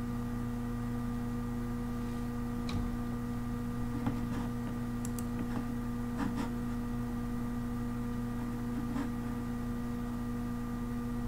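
Steady electrical hum with several fixed tones, and a few faint scattered clicks.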